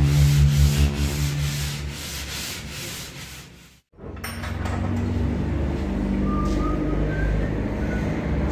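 Sanding block rubbed by hand back and forth over body filler on a car fender flare, about three strokes a second, fading out over the first few seconds. After a brief break about four seconds in, a steady low room hum.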